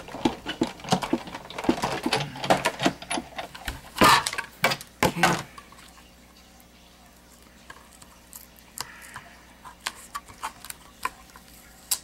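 Die-cutting machine being run to cut a metal die through cardstock: dense clattering and knocking for about five seconds, with two heavier bursts near the end of it. Then quieter handling of the card and the thin metal die, with scattered light taps.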